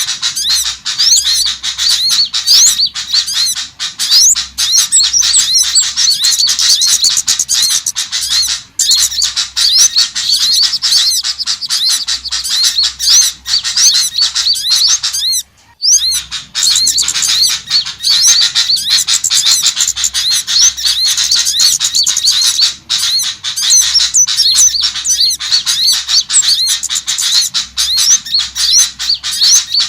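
Dense, continuous chorus of many small songbirds chirping, twittering and squeaking at once: a bird-lure recording of small birds calling, with a brief pause about halfway through.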